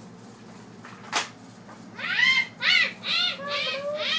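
A child's high, screechy cackling laugh voicing the witch puppet: about five short cackles from about halfway through, ending in one longer drawn-out falling note. A single sharp knock comes about a second in.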